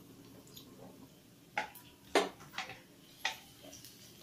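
A spatula stirring chopped garlic and ginger in ghee in a nonstick frying pan. It knocks and scrapes against the pan about four times over a couple of seconds, the loudest a little past two seconds in.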